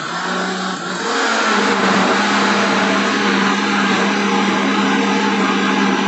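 Britânia countertop blender motor running steadily, puréeing a full jar of guava pulp. Its steady hum dips briefly about a second in, then settles at a slightly higher pitch. A low-powered blender, loaded all at once.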